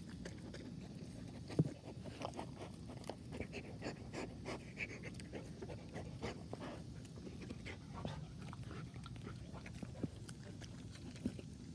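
A dog panting close by and chewing grass, faint, with scattered small crunching clicks and rustles.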